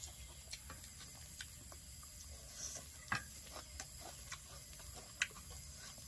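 Faint, scattered clicks and taps of metal forks and spoons against plates, the loudest about five seconds in.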